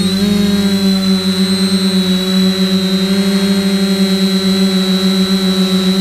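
Electric motors and propellers of a multirotor, heard close from its onboard camera, humming at a steady pitch with a high whine above. The pitch wobbles briefly right at the start, then holds.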